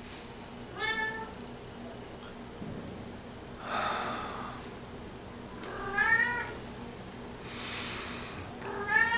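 A domestic cat meowing three times, each a short call that rises and falls, about a second, six seconds and nine seconds in. Two long breathy sounds fall between the meows.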